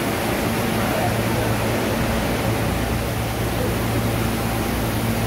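R160B Siemens subway train standing in the station with its doors open, its ventilation and onboard equipment running: an even hiss with a steady low hum.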